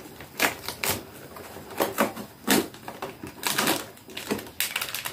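Small packaging being torn open and crinkled by hand, a run of irregular crackles and rustles as a little advent-calendar toy is unwrapped.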